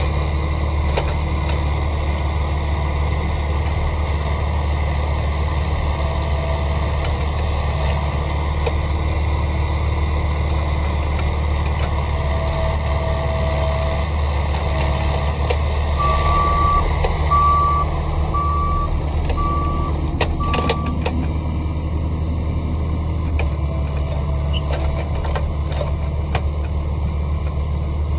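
Excavator diesel engine running steadily, with intermittent reversing alarm beeps from jobsite machinery. Midway through comes a run of five short, higher beeps about a second apart.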